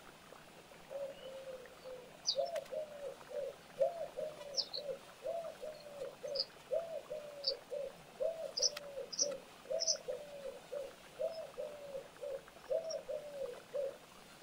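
A dove or pigeon cooing, a short phrase of a few low notes repeated over and over from about a second in until near the end. Small birds add brief, high chirps here and there.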